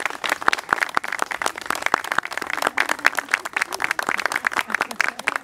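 A small group of people clapping in applause: many separate hand claps in a steady, unbroken run.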